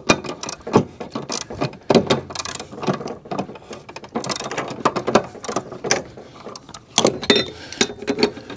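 Hand ratchet wrench clicking in irregular bursts of strokes as a mower-blade spindle bolt is tightened, with metal clacks as the loose, wrong-size socket slips on the bolt head.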